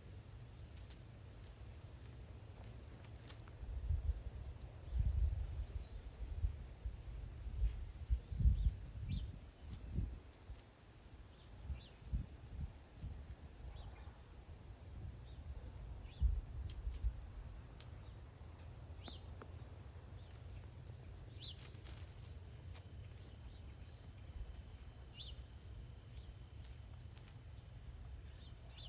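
Steady high-pitched chorus of crickets and other insects, with a few faint chirps. Irregular low rumbles and bumps on the microphone come and go between about four and seventeen seconds in, and are the loudest sounds.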